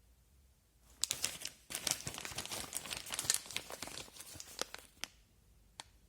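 Plastic packaging being handled and crinkled, a dense crackling that starts about a second in and stops about five seconds in, followed by a couple of sharp clicks.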